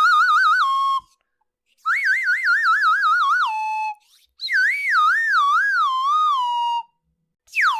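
Warbling whistle-like tones in three phrases, each a rapid wavering trill that settles onto a steady lower note. The third phrase wavers more slowly, and a swooping whistle that dips and rises begins near the end.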